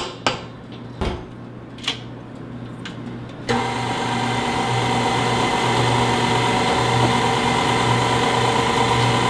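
KitchenAid Artisan stand mixer switched on about three and a half seconds in, its motor then running with a steady hum as the flat beater turns through cake batter. Before it starts, a few light knocks and clicks.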